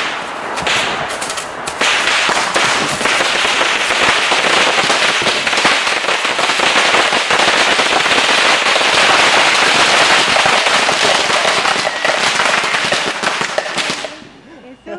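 A tightly packed bundle of a few hundred bottle rockets going off together: a few separate pops at first, then a dense, unbroken mass of hissing launches and crackling pops, which dies away suddenly near the end.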